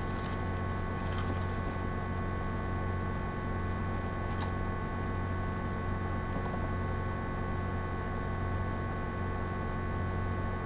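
Steady electrical hum with several constant whining tones, with faint rustling of green leaves being handled in the first two seconds and a single sharp click about four and a half seconds in.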